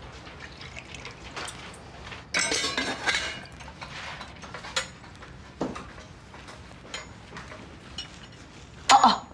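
Breakfast being handled in a kitchen: a short rush of poured liquid about two seconds in, then scattered clinks and knocks of glasses, plates and a metal teapot on a tray.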